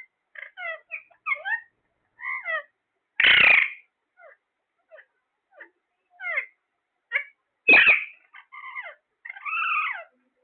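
Pet parrot calling: a string of short chirps and whistles broken by two loud, harsh squawks, one about three seconds in and one near eight seconds, then a longer wavering call near the end.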